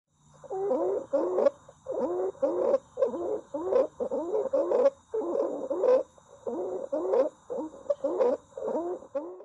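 Stridor in a child: noisy, high-pitched breaths that waver in pitch, about two a second, made by turbulent airflow through a narrowed upper airway.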